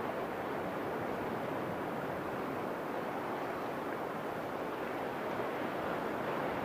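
Steady, even rushing noise with no distinct events, like outdoor wind or surf.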